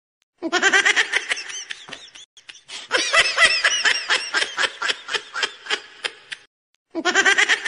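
Hearty laughter in quick, repeated high-pitched 'ha' pulses. It cuts off abruptly near the end and starts again a moment later.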